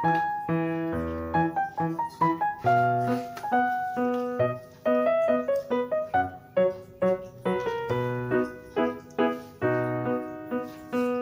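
Background piano music: a steady run of struck notes over low bass notes.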